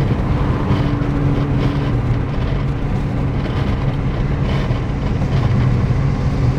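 Acura TL driving at a steady pace, engine drone and road noise heard inside the cabin, with no rise in revs.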